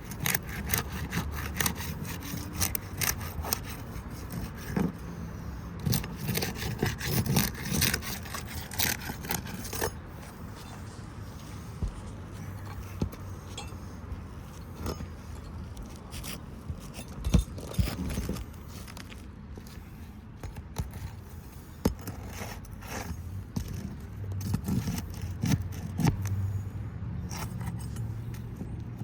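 A roof snake scraping and clicking as it is worked under asphalt shingles to free a wind-damaged shingle. The strokes come thick and fast in the first third, then sparser, with a few sharp knocks.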